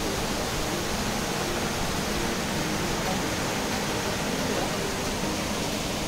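Waterfall pouring: a steady, even rush of falling water at a constant level.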